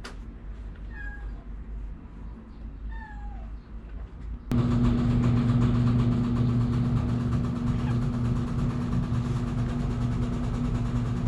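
A cat meows twice, two short falling meows about two seconds apart. About four and a half seconds in, the sound cuts suddenly to a louder, steady low hum.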